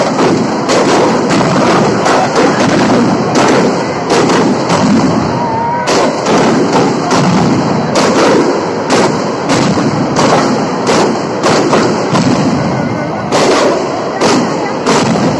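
Tronada firecracker display going off: a dense, continuous crackle of firecrackers with sharp, loud bangs about twice a second.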